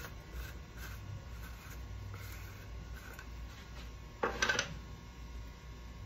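Quiet kitchen handling sounds while an omelette is being made, with a brief clatter about four seconds in.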